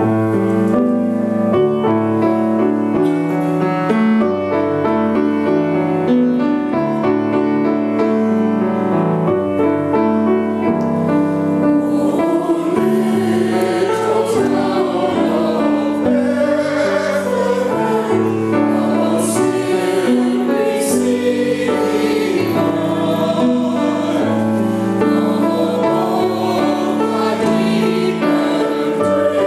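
Mixed church choir singing a hymn with piano accompaniment. Steady held notes open the passage, and the voices come in more fully about twelve seconds in.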